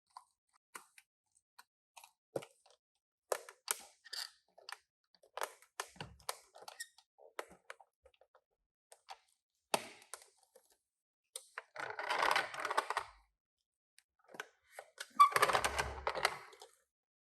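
Toy packaging being handled and opened: scattered light clicks and taps, with two longer rustling bursts, one past the middle and a louder one near the end, as the box and wrapping are worked open.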